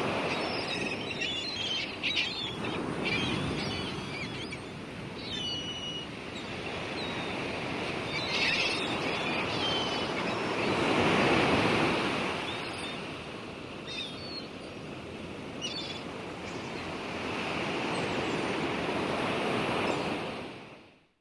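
Waves washing in and out in slow swells, with small birds chirping now and then. It fades out near the end.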